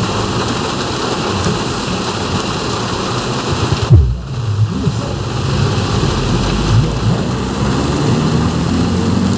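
Heavy rain drumming on a moving car, heard from inside, with the engine running low underneath. About four seconds in comes a single sudden loud low thump.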